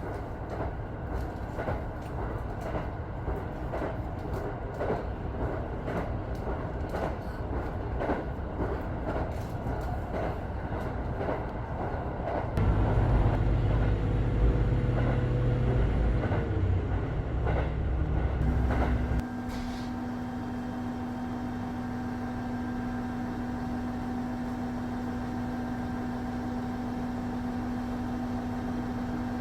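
Train running on rails, with repeated clacks over a steady rumble. About twelve seconds in a louder low rumble takes over, and a little before twenty seconds it gives way to a steadier hum with a held low tone.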